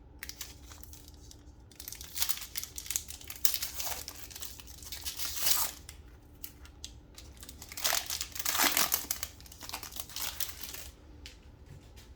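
Plastic wrapper of a trading card pack crinkling and tearing as it is opened and handled. There are several bursts of rustling, loudest in the middle and again near the end.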